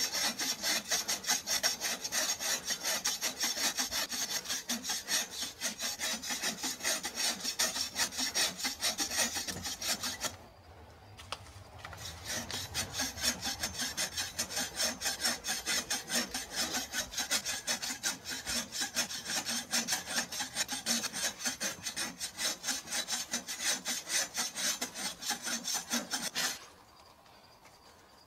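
Hand saw cutting through dead mesquite wood in quick, even back-and-forth strokes, pausing for a moment about ten seconds in and stopping near the end.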